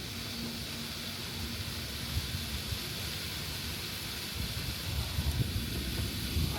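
Handheld cold-light, low-smoke firework stick burning with a steady hiss, with wind buffeting the microphone in gusts that grow stronger near the end.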